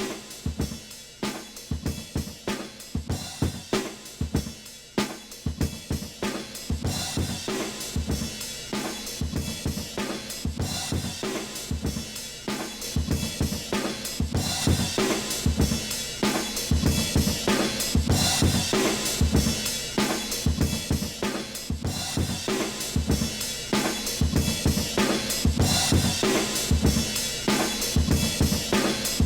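Electronic drum loop playing a steady beat of kick, snare, hi-hats and cymbals, run through Ableton mixing effect racks. It grows fuller and louder about halfway through.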